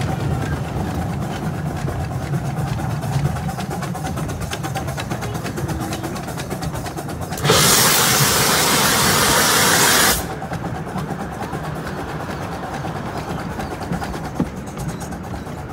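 Cagney Bros. 4-4-0 miniature steam locomotive running steadily, heard from the moving train. About halfway through, a loud hiss of steam venting lasts under three seconds and cuts off suddenly.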